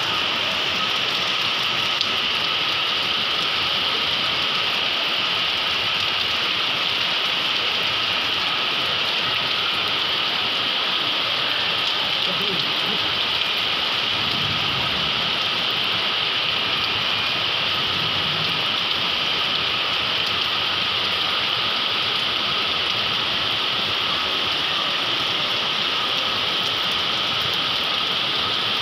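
Heavy rain falling: an even, steady hiss.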